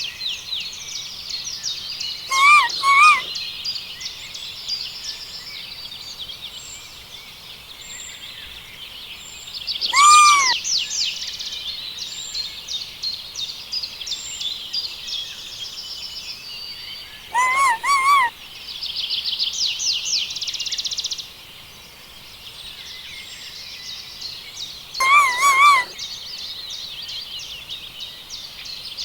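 Many small birds twittering and chirping continuously, with a louder, lower bird call breaking through four times, mostly as two quick notes.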